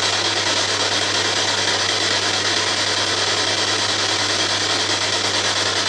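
Handheld ghost box (spirit box) sweeping through radio stations, giving a steady hiss of radio static with a low hum beneath.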